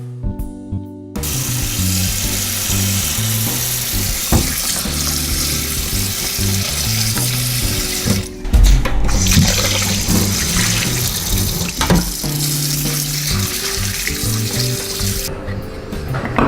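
Water running from a kitchen tap into a sink, a steady rushing hiss that starts about a second in, breaks off briefly about halfway, and stops near the end. Light background music plays underneath.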